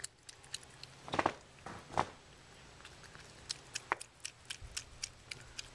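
Cat eating wet food from a metal bowl: a quick, irregular run of wet smacking and chewing clicks, with a few louder ones about a second, two seconds and four seconds in.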